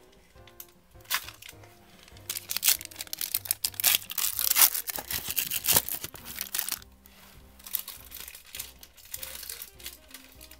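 Foil wrapper of a 1991 Upper Deck basketball card pack being torn open and crinkled, a run of crackles loudest in the middle, over quiet background music.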